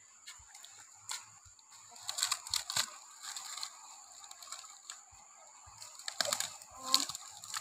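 Footsteps and rustling in dry grass and dead leaves: bursts of crackling and crunching about two seconds in and again toward the end.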